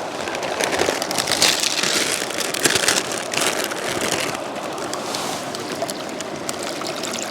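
Mountain river water rushing and splashing, an uneven noise that swells and eases, with small clicks.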